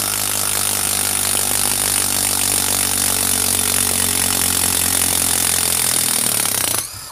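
Bosch PS41 12V Max impact driver hammering a long Spax screw into dense wood, a steady rapid impacting clatter under load. It stops suddenly near the end as the run finishes.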